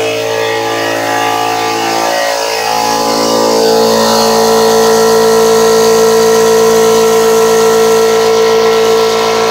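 Portable electric air compressor running and pumping up its tank: a steady mechanical drone with a strong hum, a little louder from about four seconds in.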